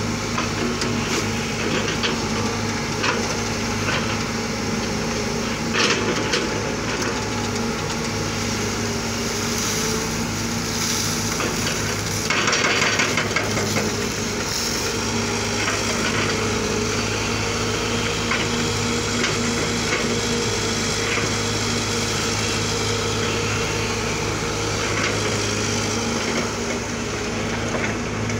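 A JCB wheeled excavator's diesel engine runs steadily under working load. Over it come intermittent clanks and scrapes as the steel bucket digs into wet earth and stones.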